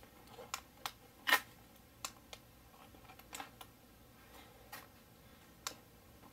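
Light taps and clicks of a hand pressing on and lifting off the glass platform of a digital bathroom scale, a handful of them spread irregularly, the loudest about a second in.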